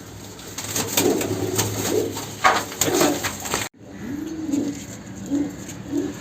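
Homing pigeons cooing repeatedly, with rustling and clicking over the first half. The sound drops out abruptly for an instant about three and a half seconds in, then the cooing carries on.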